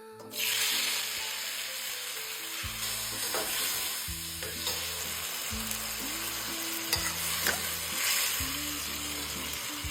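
Vegetables sizzling in hot oil in a pan, the sizzle starting suddenly as they hit the oil and going on steadily while they are stirred, with a few scrapes of the spatula.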